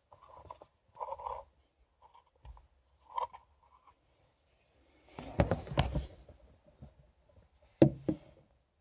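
Handling noise inside a car: a few faint short sounds at first, then a cluster of knocks and rubbing about five seconds in, and one sharp knock near the end.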